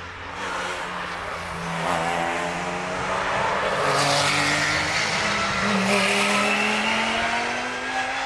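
Race car engines accelerating past, their pitch rising; a second car follows the first about halfway through.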